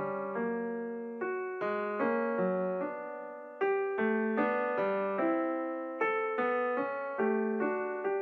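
Background piano music: a slow melody of single notes and chords struck about every half second, each left to ring and fade.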